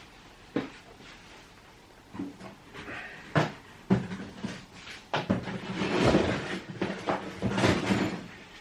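Scattered knocks and clatter of someone fetching an item, with a busier stretch of handling noise from about five to eight seconds in.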